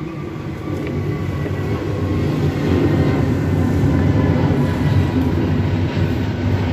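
A steady low rumble that swells about two seconds in and then holds, with a faint thin tone running through it.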